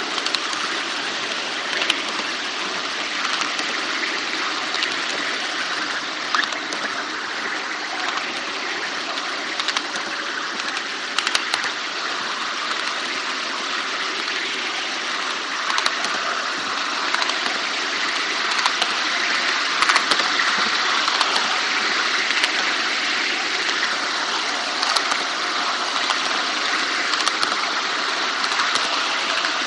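5-inch gauge model of a Class 52 'Western' diesel locomotive running along the track, heard from on board: a steady rushing run noise with occasional sharp clicks.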